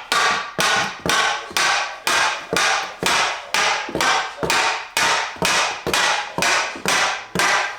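Hammer blows knocking a wooden floor plank into place, a steady run of sharp strikes at about two a second.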